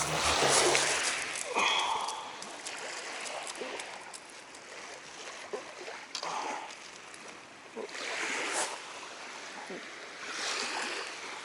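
Water splashing and lapping in soft swells every couple of seconds, with small ticks between.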